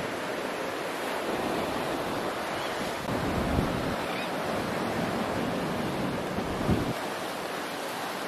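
Sea surf breaking and washing over a rocky shore, a steady rushing wash, with wind on the microphone giving two brief low rumbles, about three and a half seconds in and near seven seconds.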